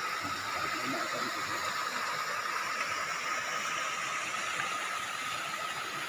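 Small waterfall pouring over rock into a shallow pool: a steady rush of falling water, with a steady high thin tone running through it.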